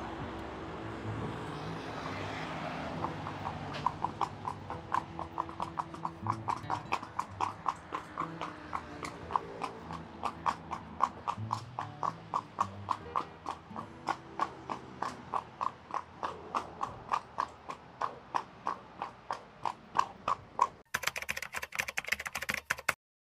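A horse's hooves clip-clopping at a walk on a paved road, in a steady, even beat of about three a second that starts about four seconds in. Near the end the hoofbeats stop and the sound cuts off.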